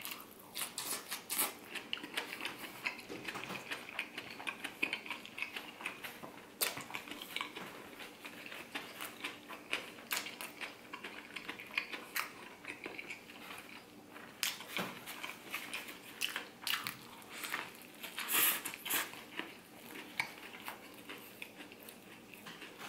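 Close-miked biting and chewing of a fried-oyster po' boy sandwich: irregular crisp crunches of toasted bread and fried oysters with wet mouth sounds, a few louder crunches standing out.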